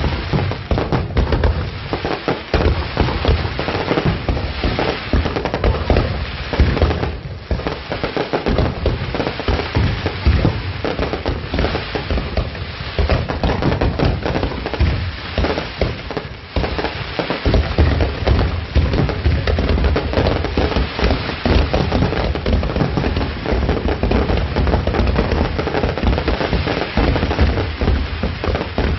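Aerial fireworks display: a dense, continuous barrage of bangs and crackling bursts, with brief lulls of a fraction of a second.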